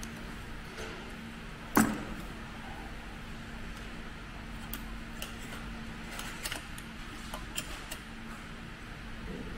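Small metal clicks and taps from hands working the slide plates and bobbin area of a heavy-duty big bag sewing machine, with one sharp knock about two seconds in. A steady low hum runs underneath.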